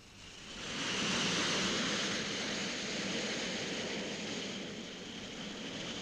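Jet fighter aircraft flying past, a steady rushing jet noise that swells about a second in and then slowly eases off.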